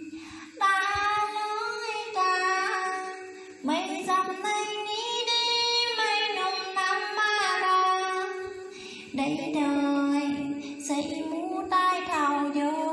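A woman singing a sung folk narrative (vè) into a handheld karaoke microphone, in long phrases with held, wavering notes and short breaths between them.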